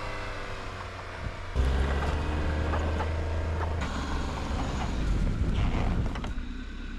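A vehicle engine running steadily, in short spliced-together shots. Its drone falls slightly in pitch over the first second and a half.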